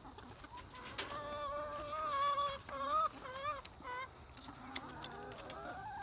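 Hens calling from inside a backyard coop. A long, drawn-out call starts about a second in and is followed by several shorter calls that rise and fall. A sharp click comes near the end.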